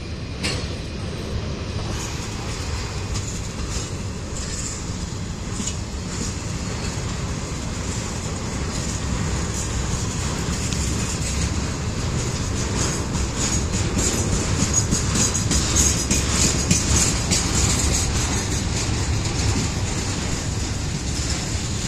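Intermodal freight cars rolling slowly past on the rails: a steady rumble of steel wheels with scattered clicks and clanks, growing louder toward the middle.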